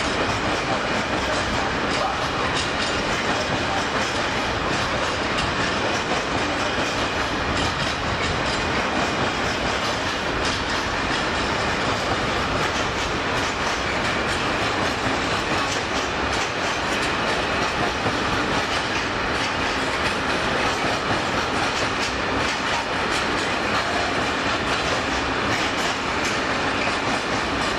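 Freight train of covered hopper wagons rolling through the station. Steady rail noise with the clicking of wheels over rail joints throughout.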